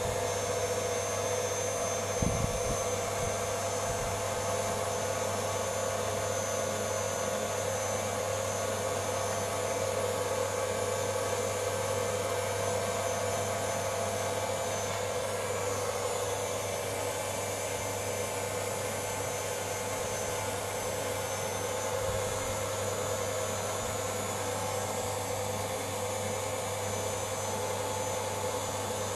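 Electric stand mixer running steadily on slow speed, its whisk beating meringue in a steel bowl to break up the large air bubbles and smooth it.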